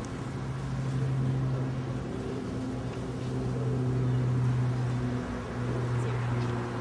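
Steady low mechanical hum, like a running engine or machine, that steps slightly in pitch about two seconds in and again about five seconds in.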